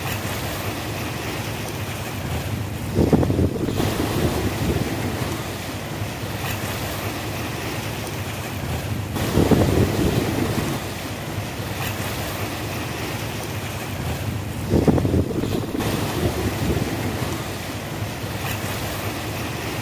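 Sea waves washing onto the shore, three larger waves breaking about six seconds apart, with wind buffeting the microphone throughout.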